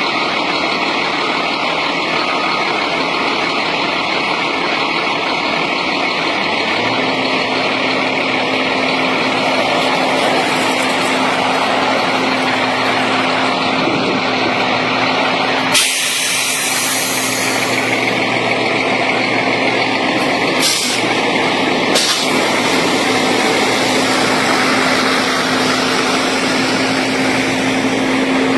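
Heavy diesel road-construction machinery running steadily. A deeper engine hum joins in about a quarter of the way through, and there are three short hisses of released air, one about halfway through and two a few seconds later.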